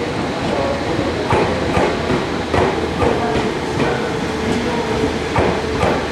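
Seibu 2000-series electric train rolling slowly through a shunting move, its wheels clacking irregularly over rail joints and points, about one or two knocks a second, over a continuous running rumble.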